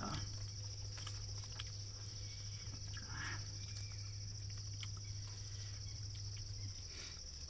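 Crickets trilling steadily at a high pitch, with a low steady hum underneath that stops near the end and a few faint clicks.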